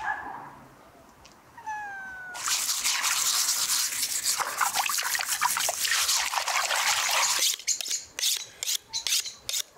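A cat gives one short falling meow about two seconds in. Then a steel-wool scourer scrapes over a beef hoof in a dense, rapid scratching for about five seconds. After that a knife is drawn along a sharpening rod in quick separate strokes, about three to four a second.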